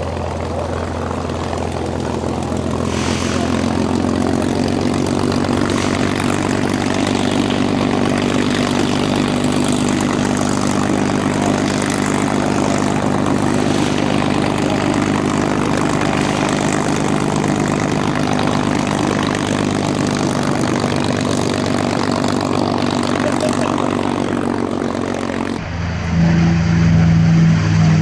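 A P-51 Mustang's V-12 piston engine and propeller running steadily, a little louder over the first few seconds. About two seconds before the end it turns abruptly louder, with a different, stronger tone.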